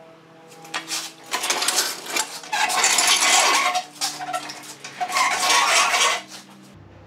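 Metal clattering and jangling, like loose hard metal pieces knocking together, in several bursts over a few seconds. A faint steady tone hums underneath.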